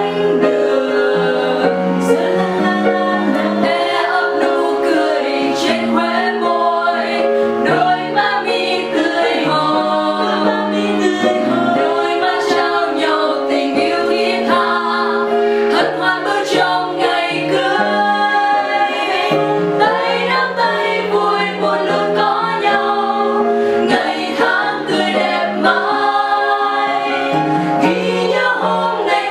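A small group of women singing a Vietnamese wedding song together in several voice parts, accompanied by an upright piano.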